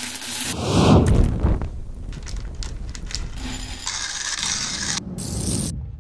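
Coffee beans pouring into a roaster with a heavy rush, then rattling and clicking as they tumble, then roasted beans being swept round a roaster's cooling tray by its stirring arms with a steady scraping hiss, in quick cuts. The sound stops near the end.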